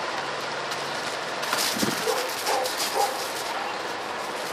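Dog barking, a few short calls in quick succession about midway through, over steady outdoor background noise.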